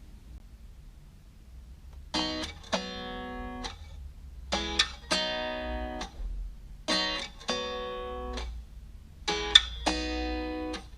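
Acoustic guitar strumming chords as the introduction of a song, starting about two seconds in after a faint low hum, in repeating groups of strokes.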